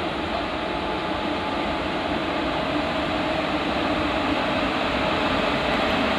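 Express train hauled by an electric locomotive approaching: a steady rumble with a faint hum, growing slowly louder.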